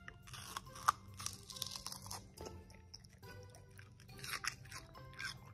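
A dog biting into and chewing a slice of watermelon held out by hand, wet crunches coming in irregular bursts: a cluster in the first two seconds and another about four seconds in.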